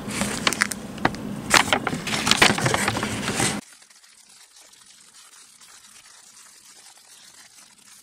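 Paper instruction sheet rustling and crinkling in the hands, with a few sharp crackles. About three and a half seconds in it cuts off abruptly, leaving only faint hiss.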